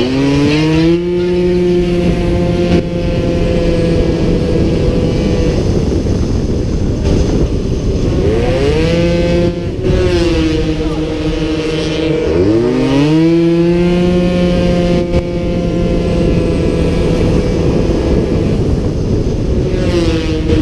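Onboard sound of a 50cc racing scooter's two-stroke engine held at high revs, with wind rushing past the microphone. The engine note climbs sharply three times, at the start, about eight seconds in and about twelve seconds in, and holds high and steady between the climbs.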